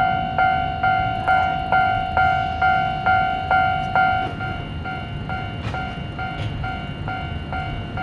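Japanese railway level-crossing alarm ringing its repeated "kan-kan" warning, a bright two-pitch ding about twice a second. About four seconds in it drops to a noticeably quieter level and keeps ringing at the same pace.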